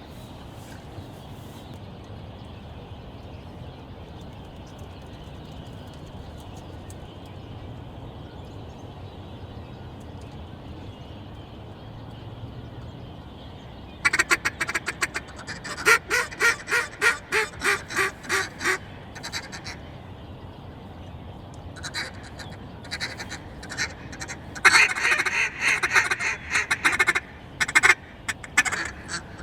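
Mallard quacking: a rapid series of quacks falling in pitch starts about halfway through, and more bursts of quacking come near the end, over a steady low background hiss.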